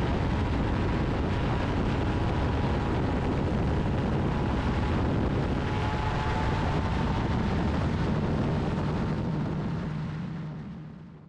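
Engines and pusher propellers of AutoGyro MTOsport 2017 gyroplanes running on the runway: a steady drone with wind noise on the microphone. It fades away over the last second or two.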